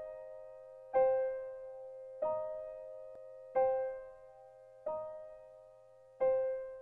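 Background music on a keyboard: slow chords struck about once every 1.3 seconds, alternating between two, each ringing out and fading before the next.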